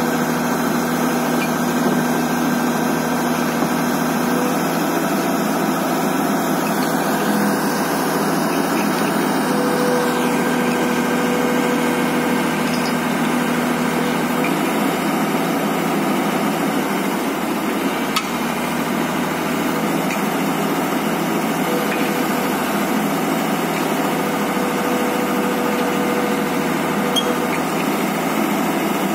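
Tata Hitachi EX110 excavator's diesel engine running steadily as the boom and arm work, with a steady tone that comes in and out three times.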